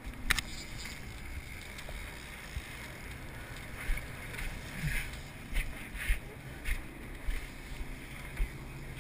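A sportfishing boat's diesel engines running steadily under a rush of water along the hull, with scattered short thumps against the microphone.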